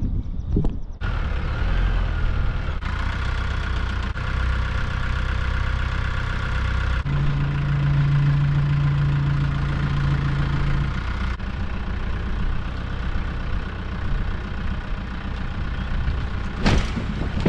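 Tractor engine running steadily under load, with a stronger low note for a few seconds in the middle, as it strains to pull an overturned chicken coop over. A single sharp knock comes near the end.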